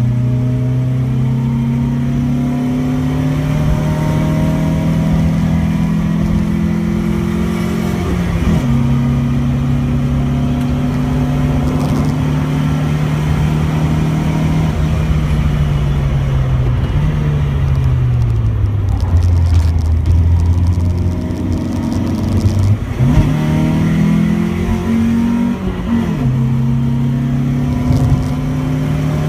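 Opel Manta GSi's 2.0-litre four-cylinder engine heard from inside the cabin at full throttle on a race track. The revs climb through the gears with a shift about eight seconds in. They fall as the car brakes from straight-line speed, with two brief rev spikes on the downshifts, before it pulls hard again near the end.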